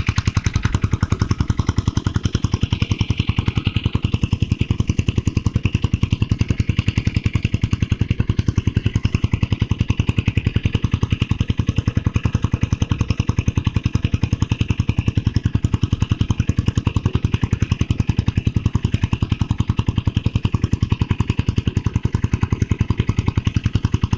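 A small engine running steadily at an even speed, its rapid regular firing pulses unchanged throughout.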